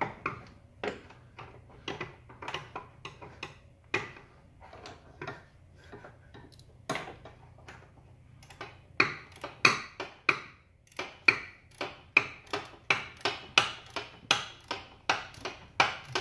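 Hand ratchet clicking as it is worked back and forth on a rear suspension bolt. The clicks are scattered and fainter at first, then come as a louder steady run of about three a second from about halfway through.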